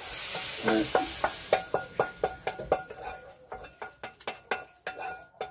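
Food sizzling in a frying pan, fading within the first second or so, then a cooking utensil scraping and knocking against the pan, about three or four ringing knocks a second.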